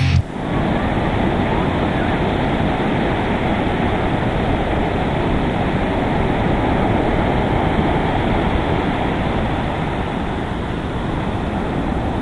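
Ocean surf breaking and washing in: a steady rushing noise.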